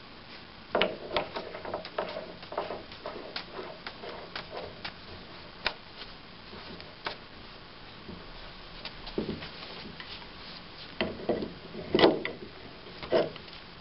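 Irregular metal clicks, knocks and scrapes as a power beyond sleeve is threaded by hand into a hydraulic directional control valve body and the valve is handled. Later come louder clinks as an adjustable wrench is fitted to tighten the sleeve, the loudest about twelve seconds in.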